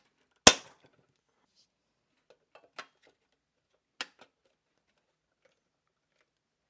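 Parts of a pressed-steel toy truck being handled during reassembly: one loud sharp knock about half a second in, then a few lighter clicks and taps a couple of seconds later.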